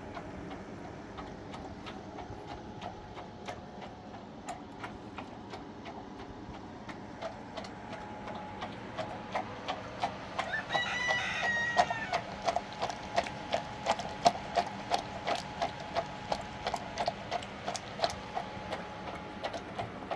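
A rooster crows once, about ten seconds in, over a steady run of sharp ticking clicks that grow louder and more regular, at about two to three a second.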